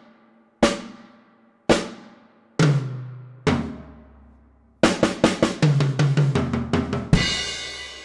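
Pearl Roadshow drum kit played through overhead and close mics: three single drum strikes about a second apart, each left to ring, the third lower in pitch. Then a quick fill of rapid strokes falling in pitch down the drums, ending on a cymbal crash with a low drum hit, the crash ringing on.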